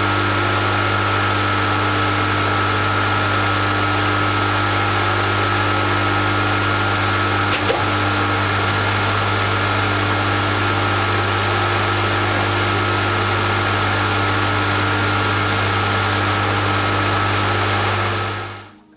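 Schaublin 102 precision lathe running steadily with a low hum and a few higher whining tones, turning a brass wheel blank to size. A single light click about eight seconds in, and the sound fades out near the end.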